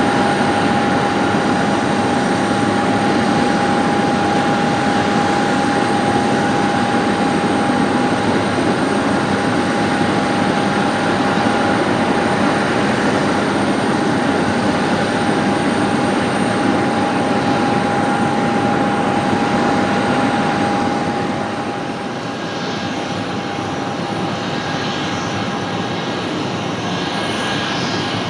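Boeing 717-200's twin Rolls-Royce BR715 turbofans running, a steady jet noise with a constant whine through it as the airliner moves along the runway. About three-quarters of the way through the sound drops a little and changes as the jet taxis nearer.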